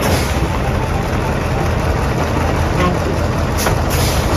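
Heavy diesel engine of an old concrete mixer truck running as the truck moves slowly forward.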